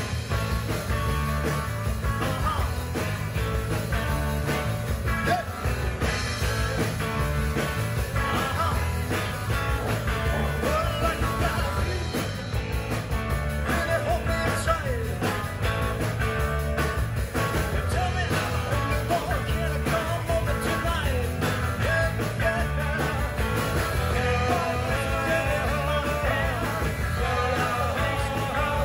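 Live rock band playing: two electric guitars, electric bass and drums, with a steady beat.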